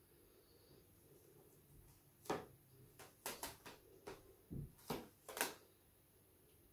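A series of soft taps and pats as a paint-covered rubber balloon is dabbed and set down on a canvas and a plate: about seven short knocks, unevenly spaced, over the middle of the stretch.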